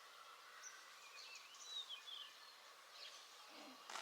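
Quiet outdoor background with a few faint bird chirps and one short arching whistled call about a second and a half in.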